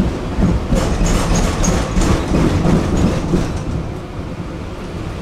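Tram running along its rails: a steady low rumble with clattering and rattling of the wheels on the track, busiest between about one and three and a half seconds in, then easing slightly.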